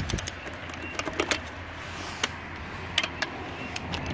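Ratcheting click-type torque wrench on a car's lug nuts, giving irregular sharp metallic clicks with a few louder ones in the second half, as the lugs are checked for torque.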